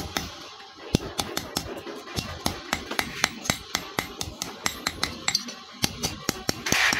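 Hand hammer striking steel: a run of quick, sharp metal blows, several a second, in an uneven rhythm.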